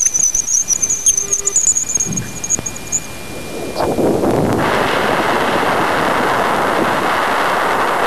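Voyager's plasma wave recording of Jupiter's bow shock, played as sound: a high, wavering whistle for about three seconds, then about four seconds in a loud, steady static-like rush sets in. The rush is the sudden burst of plasma wave emission as the spacecraft crosses the bow shock.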